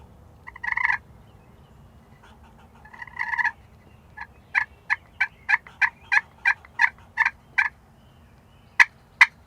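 Hen turkey calling made on a hunter's turkey call: two short raspy bursts, then a steady run of about a dozen yelps at roughly three a second, then two sharp clucks near the end.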